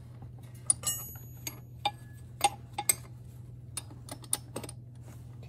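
Scattered clicks and light metallic clinks of a spanner working the nuts on the threaded adjusting bolt of a hot-stamping machine's holder, a few of them ringing briefly, over a steady low hum.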